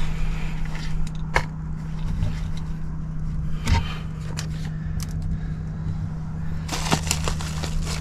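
Scattered clicks and knocks of tools and metal parts being handled over a steady low hum, with a quick run of clicks near the end.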